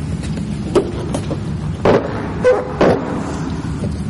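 Short rustles and scrapes of vinyl camouflage film being pressed and smoothed by hand onto an ATV's plastic rear fender, with a brief squeak about halfway through. A steady low hum sits underneath.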